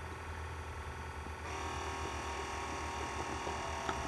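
Keurig Kold soda machine running as it finishes dispensing a drink: a steady mechanical hum with a whine, growing a little louder about a second and a half in.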